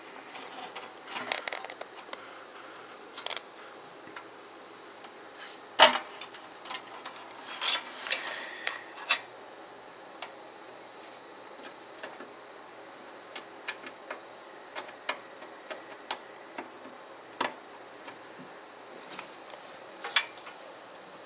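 Scattered clicks, taps and rustling as front-panel cables and their plastic connectors are handled and pushed onto pins inside a PC case. The loudest knock comes about six seconds in, with a burst of rustling around eight seconds.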